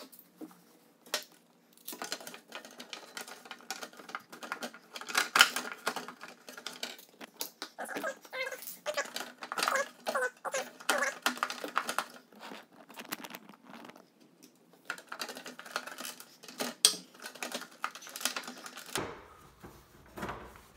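Hard plastic shroud panels of a Pro-Form 235 CSX exercise bike being handled and fitted together: a quick, irregular run of plastic clicks, knocks and rattles, with a short lull about two-thirds of the way through.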